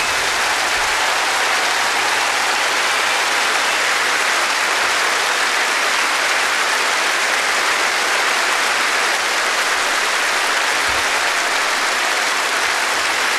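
Large arena crowd applauding steadily.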